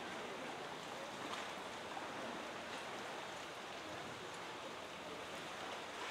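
A steady rush of moving water washing and lapping over the rocks at the edge of a seal pool, with a few faint splashes.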